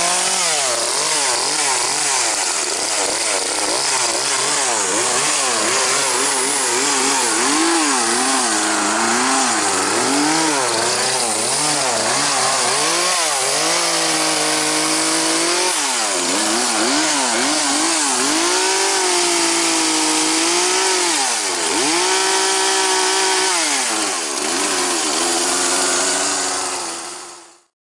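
Chainsaw running and cutting through fallen branches, its engine pitch rising and falling over and over as it is throttled up and loaded in the cut. It cuts off suddenly near the end.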